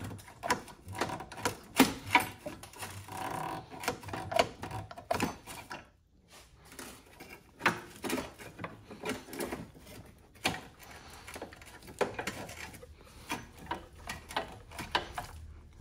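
Irregular clicks, knocks and rattles of metal and plastic parts being handled and shifted in a car's engine bay, with a short pause about six seconds in.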